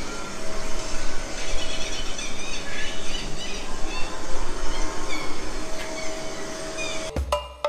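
Themed prehistoric-jungle soundscape in the dinosaur park: many short bird-like chirps and squeals over a busy background with a few held tones. About seven seconds in, background music with drums and percussion starts.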